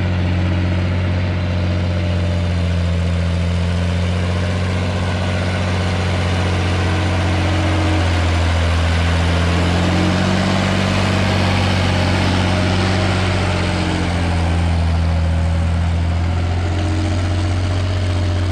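Ursus 1214 tractor's six-cylinder turbo diesel engine running steadily under load while pulling a plough through the field, its pitch rising slightly about halfway through and easing back near the end.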